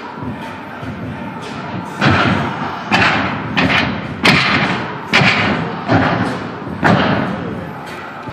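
A tumbler's hands and feet hitting and rebounding off a sprung gymnastics floor through a tumbling pass: about seven heavy thuds roughly a second apart, each echoing briefly.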